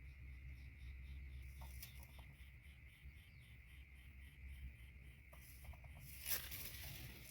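Faint outdoor ambience: a steady insect drone with a pulsing trill above it, light rustling ticks, and one sharper crackle about six seconds in.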